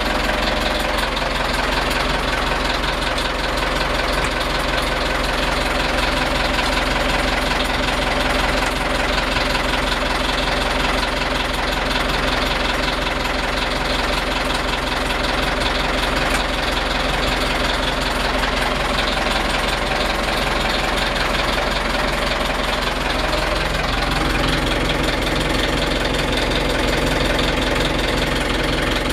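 Boat's inboard diesel engine idling steadily with a knocking diesel clatter; its note wavers briefly about three-quarters of the way through.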